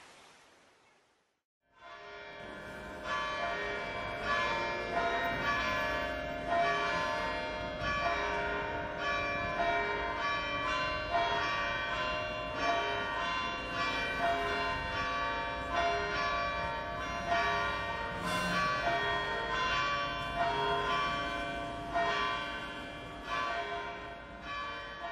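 A soft hiss fades out in the first second, and after a brief silence bells start ringing about two seconds in: a steady run of evenly spaced struck bell notes that keeps going.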